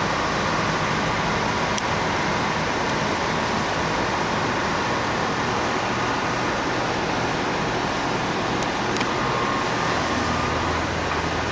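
Sandblaster blasting: a loud, steady hiss of air and grit from the nozzle that switched on abruptly just before, with a low hum growing stronger near the end.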